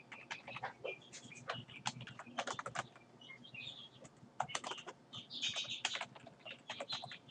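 Typing on a computer keyboard: a quick, irregular run of key clicks as a command line is typed out.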